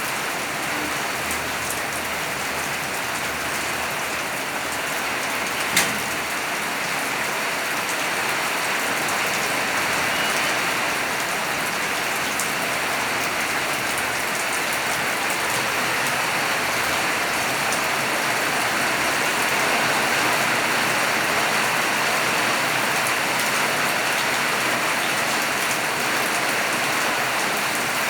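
Steady rain falling, an even hiss of drops, with one sharp click about six seconds in.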